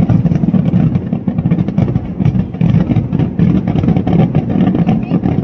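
Kerala temple fireworks (vedikkettu) barrage: a dense, continuous string of rapid explosions merging into a rolling rumble.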